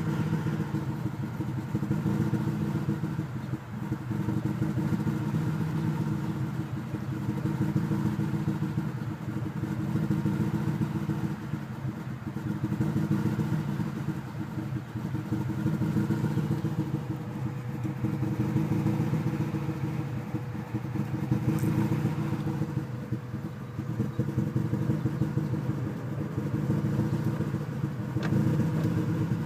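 1995 Acura Integra's four-cylinder engine idling roughly, the sound swelling and fading every few seconds. The owner suspects air bubbles in the coolant or a faulty idle air control valve.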